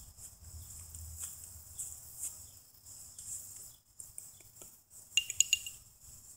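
A quick cluster of sharp, ringing metallic clinks a little after five seconds in, the loudest thing here, amid faint scattered taps, over a steady high chirring of insects.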